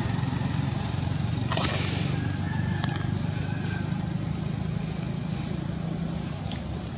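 A motor engine running steadily off-screen, a low even hum, with a short hiss about one and a half seconds in and a few faint clicks.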